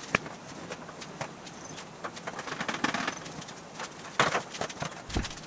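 Handling clatter of a thin aluminum sheet panel as it is picked up and carried: scattered sharp clicks and knocks, with a denser rattle about three seconds in and again just after four seconds.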